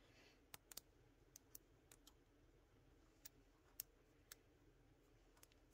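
Faint, irregular light clicks, about ten of them, as the coils of a Helix magazine spring are worked onto its spring bushing with a fingernail, one coil at a time.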